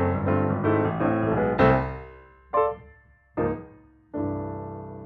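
Background piano music: a run of notes, then two single notes about a second apart, and a held chord from about four seconds in that slowly fades.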